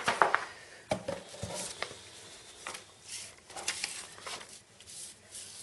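Paper inserts and packaging being handled: irregular rustling and crinkling with a few light knocks.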